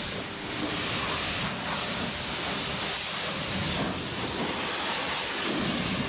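Pressure washer jet spraying a car's tire and wheel arch: a steady hiss of high-pressure spray with water spattering off the rubber and paint, swelling and easing as the wand sweeps.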